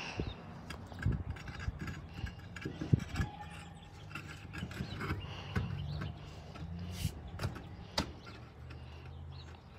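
Scattered knocks, clicks and scrapes of a steel-rimmed truck wheel being turned and shifted by hand to line it up on the hub studs. The sharpest knocks come about three seconds in and near eight seconds.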